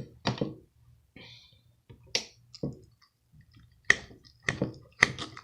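A series of irregular light clicks and knocks from objects being handled, about nine in all, the sharper ones coming in the second half.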